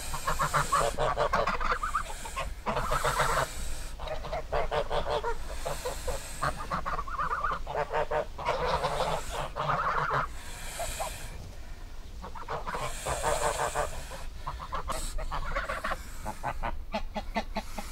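Geese honking, calling again and again in harsh, nasal honks, with a brief lull about two-thirds through and a run of quicker, shorter honks near the end.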